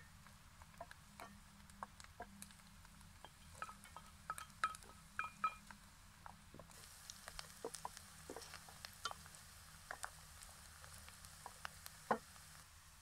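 A wooden spatula stirring chopped onions in an aluminium pot, with irregular light taps and scrapes against the pot; a few knocks make the pot ring briefly, the strongest about halfway through and near the end.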